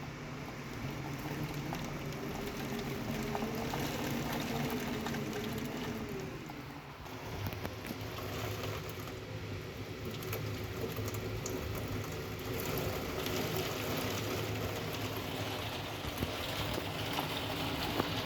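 Heavy storm rain and strong wind, a steady rushing noise.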